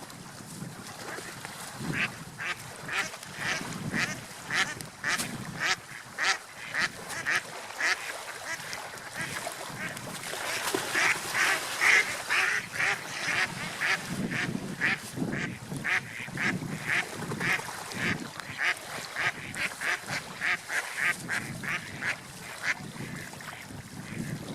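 Ducks quacking in a long run of short calls, about two a second, starting about two seconds in.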